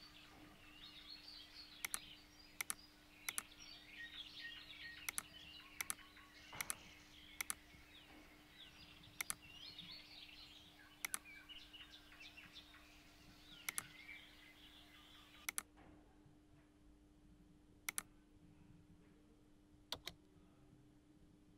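Sharp single computer-mouse clicks at irregular intervals, one every second or two, over faint birdsong. The birdsong cuts off about 15 seconds in, and the clicks go on over a faint steady hum.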